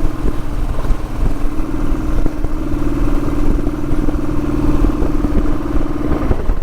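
Motorcycle engine running at a steady speed while riding, with a low rumble underneath; the engine sound briefly drops away near the end.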